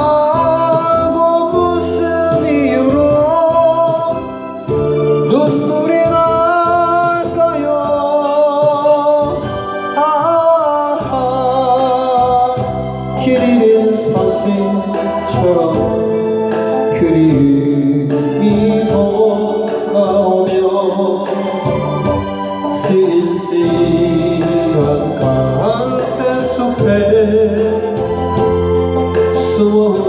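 Music: a Korean ballad sung into a handheld microphone over a backing track, the melody wavering with vibrato.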